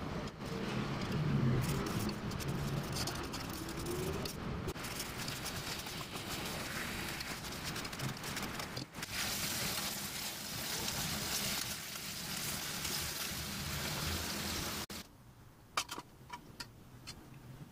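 Sauce bubbling and simmering uncovered in a stainless steel pot, reducing to thicken, with a metal ladle stirring through it. Near the end the sound cuts off abruptly, leaving a few faint clicks.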